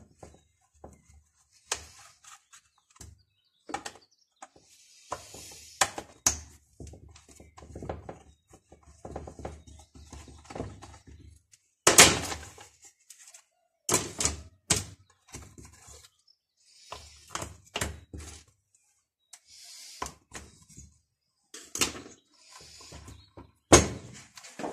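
Irregular clicks, knocks and short scrapes of a screwdriver and plastic chainsaw parts handled on a metal workbench as the chainsaw's starter cover is unscrewed and lifted off. The loudest knock comes about halfway through.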